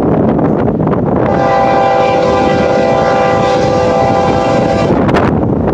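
Air horn of an approaching BNSF diesel locomotive sounding one long, several-note chord blast, starting about a second in and lasting about three and a half seconds. Wind buffets the microphone throughout.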